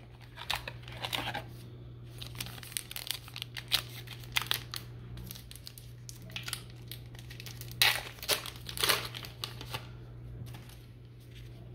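Trading-card pack wrapper crinkling and tearing as the pack is opened, in several irregular bursts of crackling.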